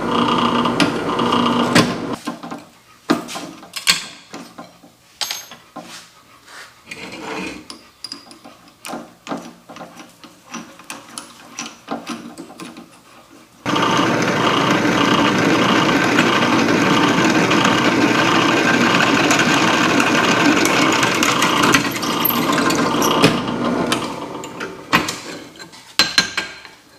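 Drill press motor running as a bit drills into a metal workpiece held in a drill press vise. It stops about two seconds in, and scattered clicks and knocks of the vise and workpiece being moved follow. About halfway through it runs and drills again, then stops near the end, followed by more clicks of the vise.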